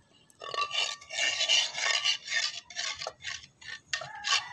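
Metal ladle stirring and scraping around an aluminium wok of hot oil, in a run of uneven rasping strokes that start about half a second in.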